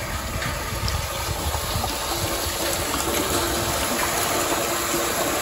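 Rainwater pouring into a storm drain and churning under the grate: a steady rush of splashing water.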